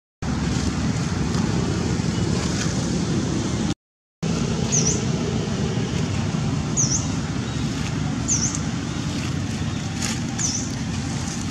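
Wind buffeting the microphone, a steady low rumble, cut off by a brief drop-out to silence about 4 s in. From about 5 s in, a short high chirp repeats every couple of seconds.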